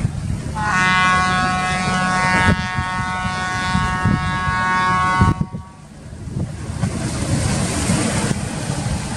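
A horn sounding one long steady blast of about four and a half seconds, over wind noise on the microphone and a low rumble.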